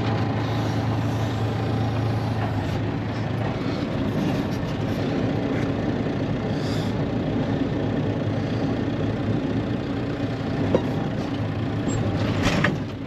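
Vehicle engine running steadily at low throttle while pulling a cattle trailer stuck in deep snow, with a brief clunk near the end.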